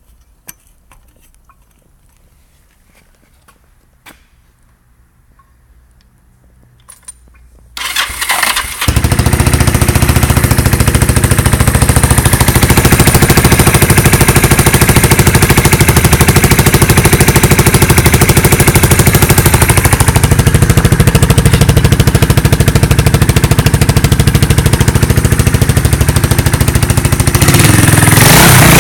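Kawasaki KZ250 motorcycle engine starting about eight seconds in after a few quiet clicks, then running loud with a rapid, even exhaust beat, a little louder near the end. The exhaust is loud because the pipe has snapped before the muffler.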